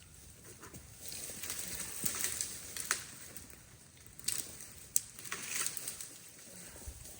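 Rustling and crunching in dry leaves and brush, with a few sharp snaps of twigs.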